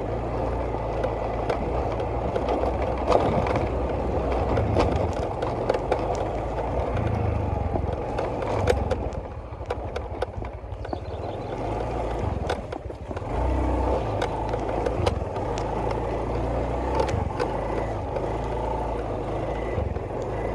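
A vehicle on the move: a steady low engine rumble with wind noise, broken by frequent small clicks and rattles.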